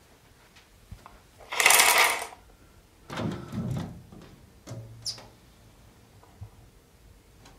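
A lace curtain swept aside and a window opened: one loud swish about two seconds in, then softer rustling and a few light clicks and knocks from the window frame.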